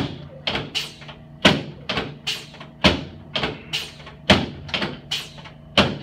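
Chiropractic rib adjustment on a padded adjusting table: an uneven run of sharp clacks, about two a second, each dying away quickly.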